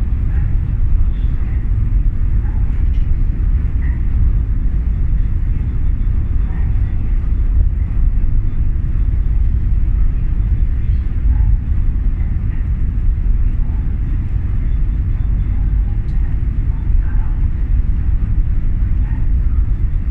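Steady low rumble on the deck of the ferry MV Armorique as it sails out of port. The level stays even throughout, with only faint scattered higher sounds over it.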